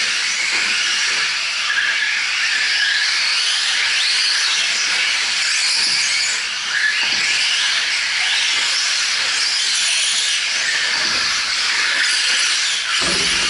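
Several 1/10-scale 4WD short course RC trucks racing on a dirt track, their electric motors and drivetrains giving high whines that rise and fall as they speed up and slow down, over a steady hiss.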